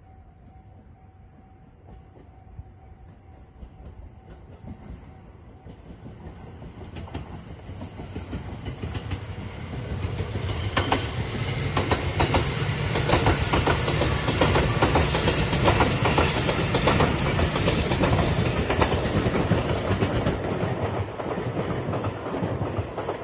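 A passenger train approaches and passes at speed, its wheels clicking rhythmically over the rail joints. It grows steadily louder, is loudest in the middle, and fades near the end.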